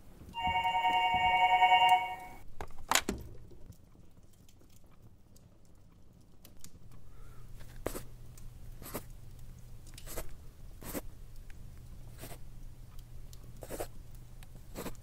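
A telephone ringing with a steady electronic ring for about two seconds, cut off and followed by a sharp click. Later a low steady hum comes in, with single sharp knocks about a second apart.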